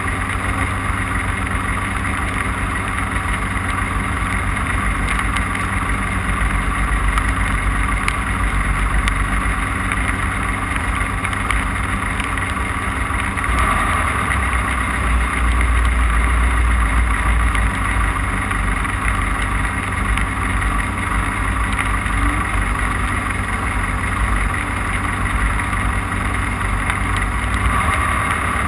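Off-road race car driving at speed, its engine running steadily with a heavy low rumble that grows stronger about halfway through. Heard from an onboard camera.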